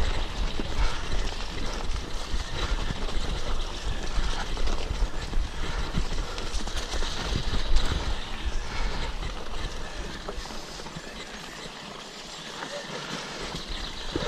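Bike rolling fast down a rocky forest trail: tyres crunching over stones and the frame rattling in quick knocks, with wind buffeting the microphone. It eases off a little about ten seconds in, then picks up again near the end.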